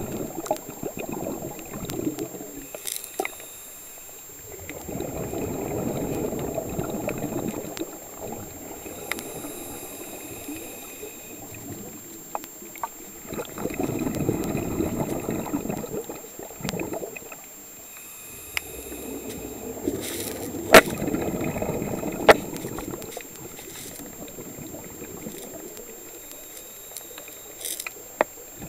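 Scuba diver breathing underwater through a regulator: a surge of exhaled bubbles gurgles for three or four seconds about every eight seconds, with a faint hiss of the inhale between. A few sharp clicks stand out, the loudest about two-thirds of the way through.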